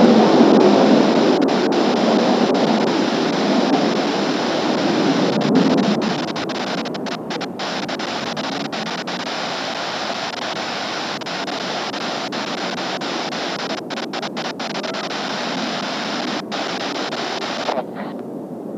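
Jet roar of Blue Impulse Kawasaki T-4 trainers fading away over the first six seconds after a pass, leaving a steady rushing noise of the jets at a distance.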